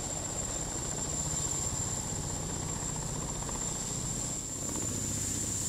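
Sikorsky-Boeing SB-1 Defiant coaxial-rotor compound helicopter flying low, its rotors giving a fast, steady chop, with a thin high whine over it.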